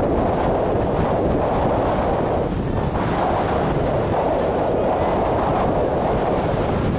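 Steady wind noise on the microphone.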